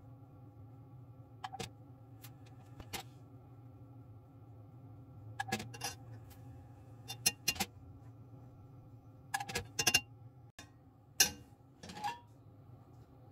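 Kitchen utensils and cookware clicking and clinking lightly, about a dozen short knocks in small clusters, over a steady low hum.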